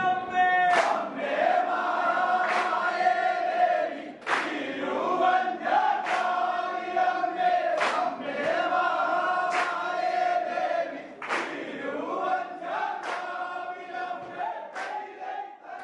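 A large group of people singing in unison, holding long notes, with a sharp clap-like beat about every two seconds; the singing grows quieter over the last few seconds.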